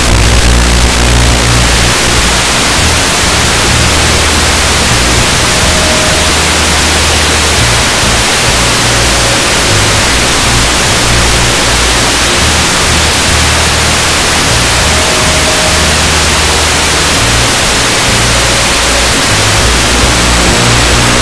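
Loud, steady rushing hiss from the onboard microphone of an FPV model aircraft in flight, with a low hum that comes and goes every second or two.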